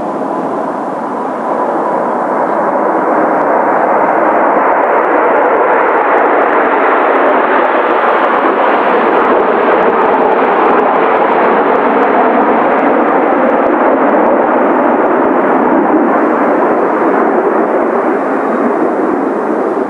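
Kawasaki T-4 jet trainers flying over, their turbofan engines making a steady jet noise that swells about two seconds in and stays loud.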